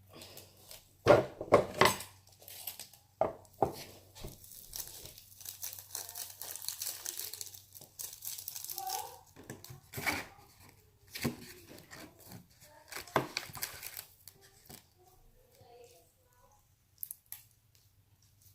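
Packaging crinkling and tearing, with several sharp knocks of small objects handled on a table.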